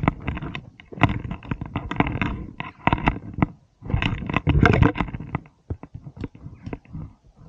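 Footsteps crunching and scraping on loose stones and gravel on a steep rocky slope, in irregular bursts that thin to scattered clicks near the end.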